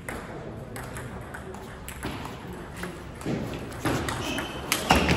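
Table tennis rally: the celluloid-type ball clicking off rubber bats and the table in quick, irregular succession, with a sharper knock near the end. Faint clicks from other tables and background chatter carry in the large hall.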